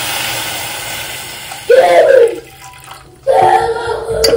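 Water pouring into a steel pan of dry macaroni, a steady splashing rush that fades out after a second or two. This is followed by two short, loud pitched sounds.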